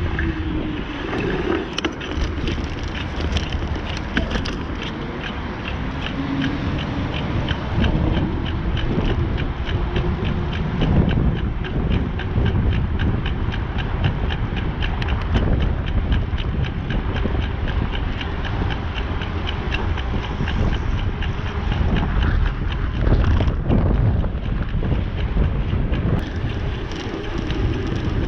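Strong wind buffeting the microphone of a camera on a moving bicycle, a constant low rumble. Over most of it runs an even, rapid ticking of about three clicks a second from the bike, which stops shortly before the end.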